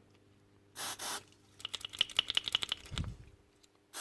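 A short hiss of aerosol contact cleaner sprayed into the impact gun's trigger switch about a second in, then a quick run of light clicks and a dull low thump near the end.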